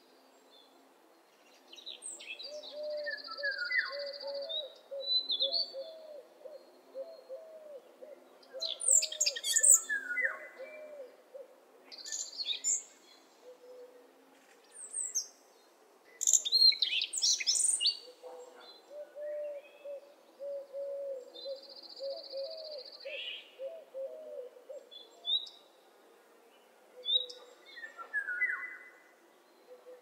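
Birdsong from several birds: runs of low, evenly repeated calls, with higher chirps and short whistles over them.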